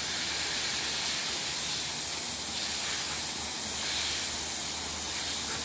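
Garden hose spraying a jet of water up into the air from its open end: a steady hiss of spray.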